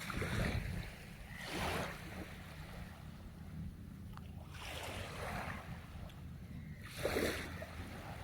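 Sea waves breaking and washing up the shore, coming in four uneven surges of hiss over a steady low rumble of wind on the microphone.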